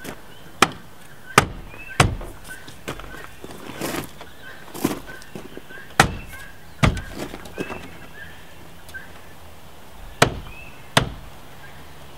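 Drip rail (gutter) trim on a Jeep Cherokee XJ roof being pressed and snapped onto its retaining clips: a series of sharp snaps and knocks at uneven intervals, with a pause of a couple of seconds before the last two.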